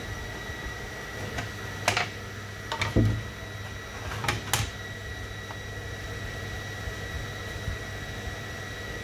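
Cut template pieces of thin board being lifted out of a laser cutter's honeycomb bed, with a few light knocks and clatters about two, three and four and a half seconds in, over a steady machine hum.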